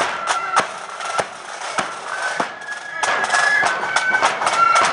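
Marching flute band playing a tune: flutes carry a high melody over regular drum beats, and the flutes grow louder about three seconds in.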